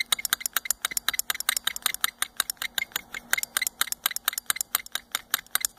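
Carburetor throttle (butterfly) shaft and linkage on a 1990 Mercury 40 hp outboard carb, worked rapidly back and forth by hand, giving fast clicking and rattling at about ten clicks a second. The shaft is being turned to work freshly applied penetrating oil into its bores and free it up.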